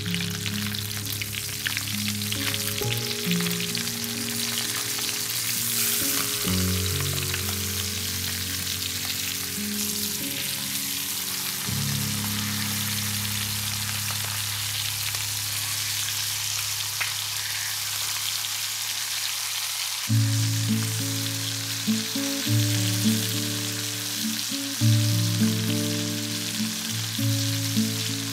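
Chicken legs sizzling as they fry in butter and oil in a pan, a steady crackling hiss. Low background music plays underneath and grows louder and more rhythmic about two-thirds of the way in.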